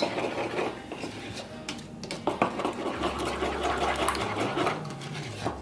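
A spoon stirring thick mayonnaise-based dressing around a wooden bowl, a steady run of quick scrapes and small clicks.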